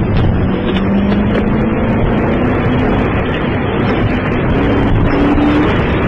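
Steady, loud roar of a large propylene tank-car fire burning after the explosion, heard through a police car's radio-band microphone.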